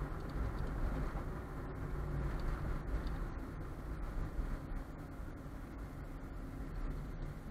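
Steady low engine and tyre noise of a car driving, heard inside its cabin.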